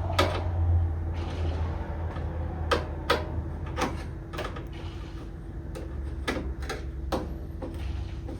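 Cordless power screwdriver running in two short spells, backing out cover screws, with sharp clicks and knocks of the driver and metal parts being handled in between.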